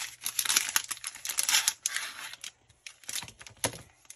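Plastic packaging crinkling and rustling in irregular bursts as a heavy-duty phone case is unwrapped, with a short pause past the middle and two sharper crackles near the end.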